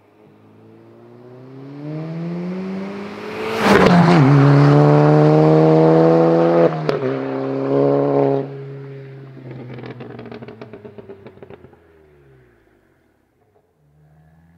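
Tuned VW Golf GTI Performance's 2.0-litre turbocharged four-cylinder with an aftermarket valved exhaust accelerating hard past, its note rising on approach and dropping as it passes. After a sharp crack, the driver lifts off and the exhaust lets out a rapid string of pops and crackles on the overrun while the engine note falls away and fades.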